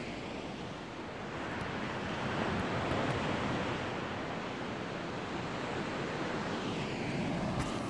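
Steady rushing noise of sea surf breaking in a rocky cove below, mixed with wind, swelling a couple of seconds in and again near the end.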